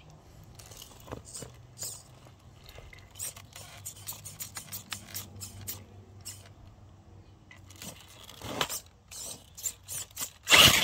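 Axial Ryft RC rock crawler crawling over rocks: its tyres and chassis click and scrape on stone over a faint low motor hum, with one loud scrape near the end.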